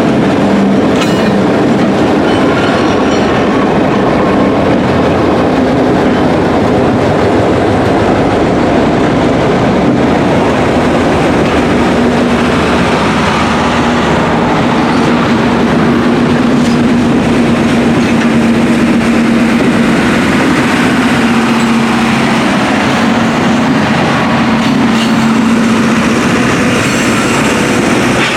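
Passenger train running on the rails: a loud, steady rumble of wheels with clickety-clack over the rail joints. A steady hum joins in about halfway through and stops shortly before the end.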